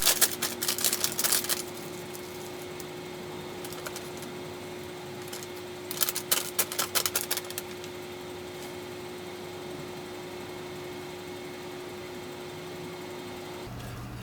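Two short spells of clicking and rustling, at the start and about six seconds in, from hardware or paper being handled. A steady hum runs under them and cuts off shortly before the end.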